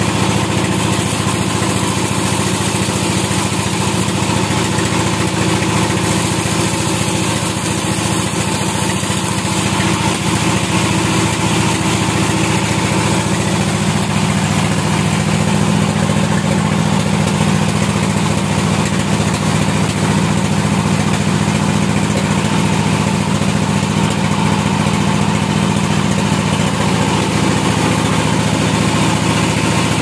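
Large vertical band sawmill running steadily, a constant machine drone with the hiss of the band blade cutting through wood as timber is fed past it.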